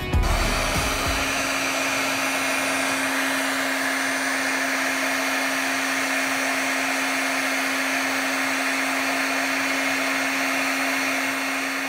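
Heat gun blowing steadily: an even rushing of air with a low steady hum from its fan motor, shrinking heat-shrink tubing on a freshly soldered T-plug battery connector.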